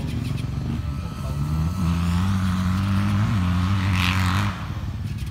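A motocross motorcycle engine running at steady revs, its note edging slightly higher, then dropping off sharply about four and a half seconds in.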